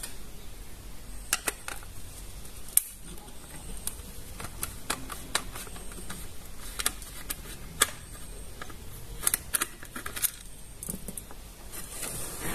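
Scattered small sharp clicks and ticks, a few louder than the rest, from a screwdriver working the screws out of a Tenda F3 router's plastic case.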